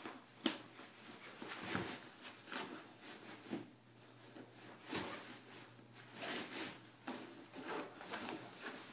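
Bernese mountain dog puppy chewing and tugging a fabric laptop bag: irregular rustling and scraping of the cloth, with a couple of sharper clicks.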